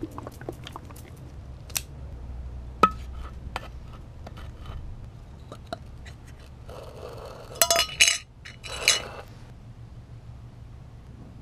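A small metal can of wood finish is handled and shaken with light clicks and knocks. Then, about seven to nine seconds in, its lid is worked off with a burst of scraping metallic clinks and snaps.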